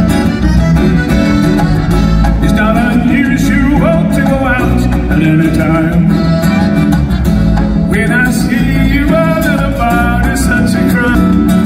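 A live band playing amplified music in an arena, with guitar, and a lead voice singing over it for stretches.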